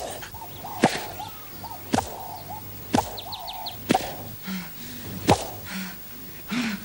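Whip lashes landing on a person: five sharp cracks about a second apart.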